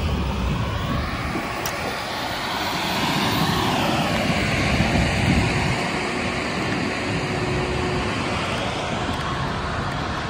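Steady wind rush and low rumble on the microphone of a moving e-bike, over the sound of city traffic at an intersection.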